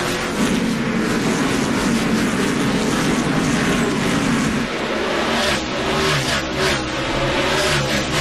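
A pack of NASCAR stock cars' V8 engines at racing speed, passing close by one after another. About five seconds in, the engine note drops lower.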